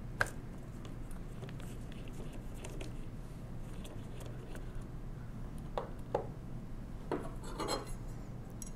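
A screwdriver backing a small 4-48 machine screw out of a 1920s Monroe mechanical calculator: a few faint metallic clicks and clinks, two of them close together about six seconds in, over a low steady hum.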